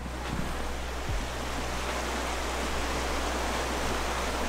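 River water rushing steadily over a rocky riffle, an even, unbroken noise.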